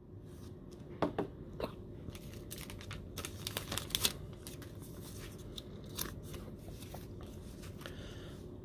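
A trading card being slid into a clear rigid plastic toploader and handled: scattered quiet clicks and rustles of card and plastic, busiest about two to four seconds in.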